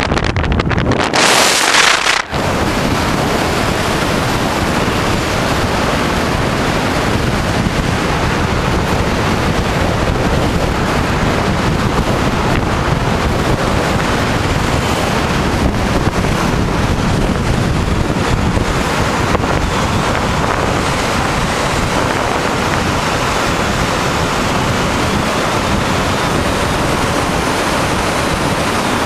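Steady loud rush of wind buffeting the microphone from a moving car, mixed with road noise, after a brief sharper hiss in the first two seconds.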